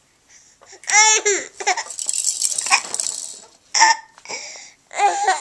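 A baby's high-pitched squeals and giggles in several short bursts, the first about a second in rising and falling in pitch.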